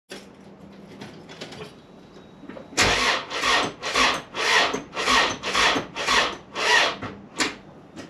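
Starter motor laboring to turn over a Honda G23 VTEC four-cylinder: about nine slow, heavy cranking strokes, a little under two a second, starting about three seconds in and stopping near the end without the engine firing. This is the hard-cranking fault: the starter can hardly turn the engine over once it has reached operating temperature, and the owner first suspects the battery.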